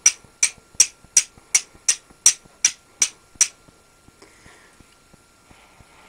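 A steel striker struck repeatedly against a piece of flint to throw sparks onto char cloth: ten sharp clicking strikes, about three a second, that stop a little after three seconds in, followed by faint rustling.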